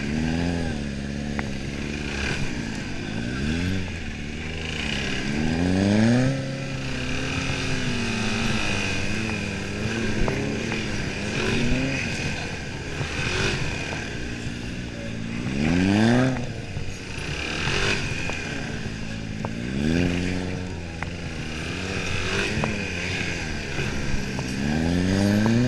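Suzuki DR-Z400SM's single-cylinder four-stroke engine revving up sharply and dropping back several times, with steadier running between the throttle bursts, heard from on board the bike.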